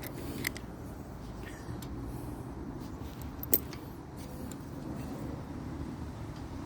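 Small clicks of bicycle brake-pad hardware being handled and hand-tightened, with one sharper click about three and a half seconds in, over a steady low background rumble.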